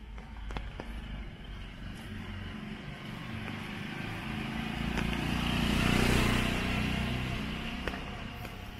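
A car driving past on a rain-wet street, its engine and tyre hiss swelling to a peak about six seconds in and then fading away.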